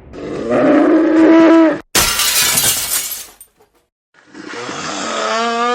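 Very loud snoring in two long, droning, moo-like snores with a steady pitch; the second sags downward at its end. Between them comes a harsh crashing burst of noise.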